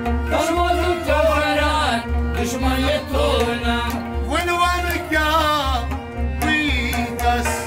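A man singing a Kashmiri Sufi song, accompanied by a harmonium's held drone and a rabab, over a steady low drum beat of about two strokes a second.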